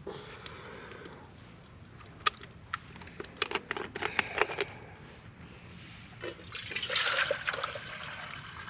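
Water pouring and splashing, loudest about seven seconds in, after a run of sharp clicks and knocks.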